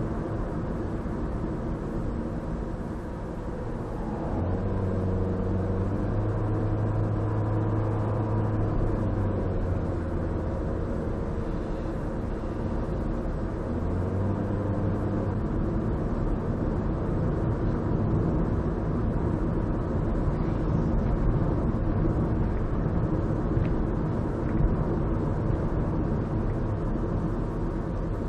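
Car engine and road noise heard from inside the cabin while driving at town speed, a steady rumble with a low engine hum that grows stronger for stretches of several seconds.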